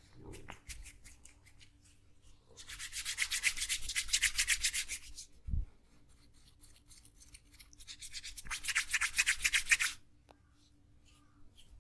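Hands rubbing rapidly in a massage, in two bouts of a couple of seconds each made of fast, even strokes, with a single dull thump between them.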